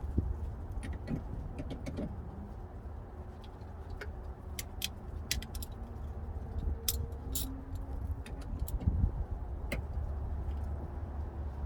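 Scattered light clicks, ticks and small rattles from hand-tool work on a minivan's plastic interior trim and screws, irregular and in short clusters, over a steady low rumble.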